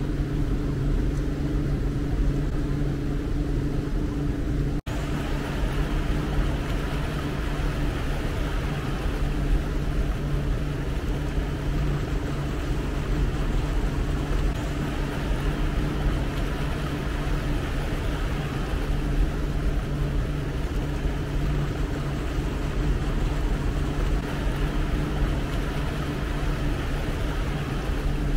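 A boat's engine running at a steady pace with a low, even hum, under the rush of water and wind. There is a momentary break in the sound about five seconds in, and after it the hiss is a little louder.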